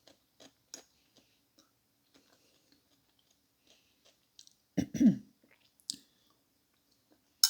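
Close-up eating sounds: soft chewing and small wet mouth clicks, with a short, louder low throaty sound about five seconds in.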